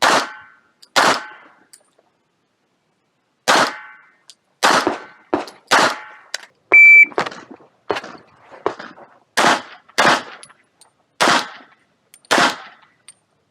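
A 9 mm Glock 45 pistol fired in a string of single shots, each a sharp crack with a short echo, spaced about half a second to a second apart, with a pause of a couple of seconds after the first two. About halfway through there is a short, high, steady beep, the loudest moment.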